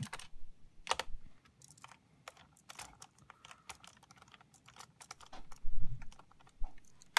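Small screwdriver clicking and scraping against the screws and plastic bottom case of an HP EliteBook 8470p laptop as the keyboard screws are loosened: scattered light clicks, with a duller knock a little before the end.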